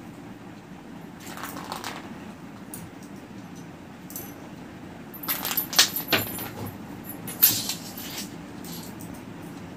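Kittens scuffling on a concrete floor while playing with a small ball: clusters of short clicks and scrapes, a brief one about a second in and a busier run from about five to eight seconds in, over a steady low hum.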